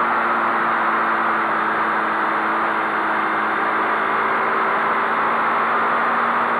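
Honda CBX 250 Twister's single-cylinder four-stroke engine running steadily at high speed, near 120 km/h, under a constant rush of wind noise.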